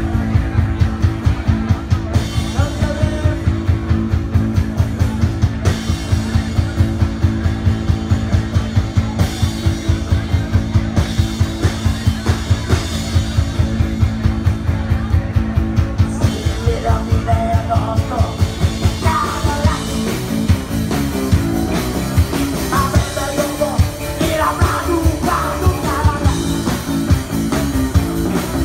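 Live rock band playing loud: a fast, steady drum beat under electric guitars, with singing.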